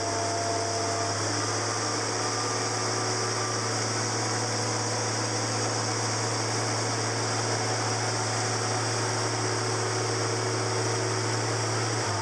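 Boatyard travel lift's engine and hydraulics running with a steady, loud hum, dropping off at the very end.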